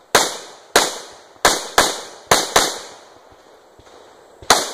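Rifle shots fired during a match stage: six in quick succession about half a second apart, each with a short echoing tail, then a pause of about two seconds and one more shot near the end.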